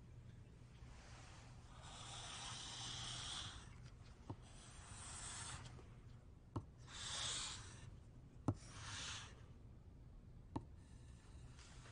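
Pencil scribbling on paper in four scratchy spells, the first and longest lasting a couple of seconds, with a few sharp ticks of the pencil tapping the page between them.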